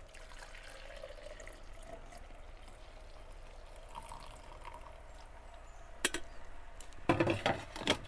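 Coffee poured from a glass carafe into a thermos: a faint, steady trickle. Near the end come a sharp click and a short clatter of knocks as the glass carafe is set back into the coffee maker.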